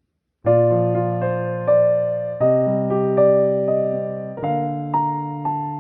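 Background music: an electric piano playing slow, gentle chords with a simple melody, starting about half a second in, each note struck and fading away.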